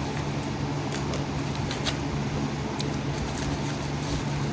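Steady low background hum with a few light clicks and crinkles of a package being opened and handled.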